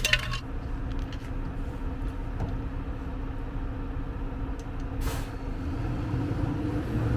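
BMW E92 335i's N54 twin-turbo inline-six cold-starting: a sudden loud burst as it fires, then a steady idle.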